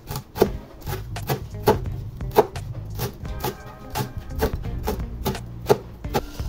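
Large knife chopping fresh parsley on a wooden cutting board: sharp blade strikes about two a second, over background music.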